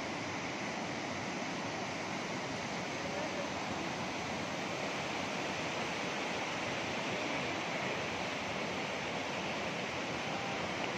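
The Alaknanda river in flood, rushing steadily over boulders below the bank.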